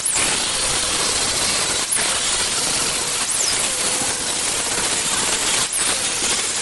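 Handheld angle grinder grinding the welds and edges of welded mild steel bar stock. It runs steadily and loudly, dipping briefly about two seconds in and again near the end as the disc eases off the metal.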